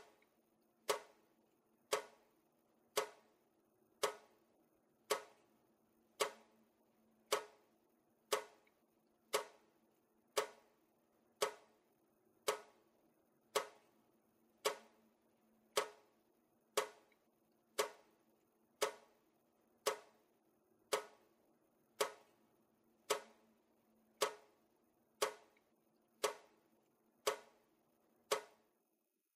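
Water dripping: single drops falling at a steady pace of about one a second, each a short plink with a brief ring.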